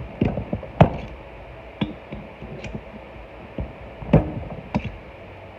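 About six scattered knocks and clicks, the loudest about a second in and again near four seconds, of a valve keeper installer tool and valve parts being handled on a cylinder head.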